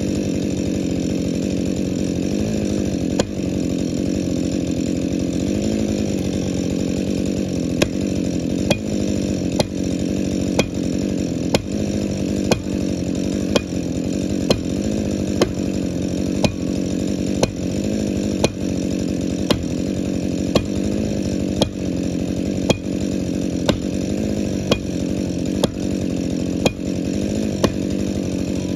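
Husqvarna two-stroke chainsaw running at high revs while cutting into a large spruce, steady with small rises and dips in pitch. From about a third of the way in, a sharp tick comes roughly once a second.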